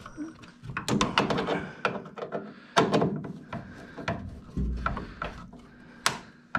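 A screwdriver and hands working against a furnace's sheet-metal cabinet as a screw is turned in: irregular clicks, scrapes and sharp knocks. The loudest knocks come about a second in, near the middle and near the end.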